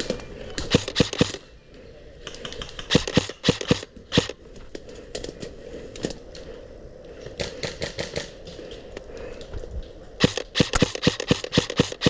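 Airsoft M4-style electric rifle firing in quick bursts of sharp snapping shots. There are about five clusters, with short pauses between them.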